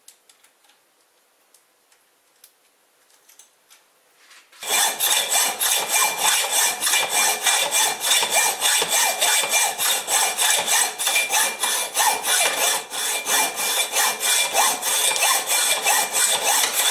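A few faint clicks in near silence, then about four and a half seconds in a loud, fast, rhythmic rasping scrape starts abruptly and keeps going, several strokes a second.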